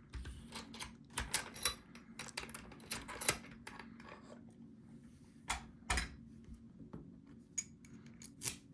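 Small metallic clicks and rattles of a freshly reassembled ASSA 700 lock cylinder being handled and its key worked in the plug, irregular sharp ticks with a few louder clacks.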